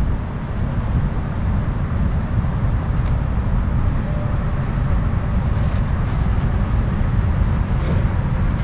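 Steady low rumble of outdoor background noise, with a brief faint high-pitched sound near the end.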